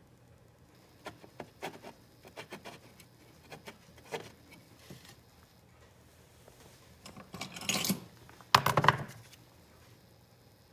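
Workbench handling noises while a soldered coil lead is heated and pulled from a circuit board: scattered light clicks and taps, then two longer scraping noises near the end, the second the loudest.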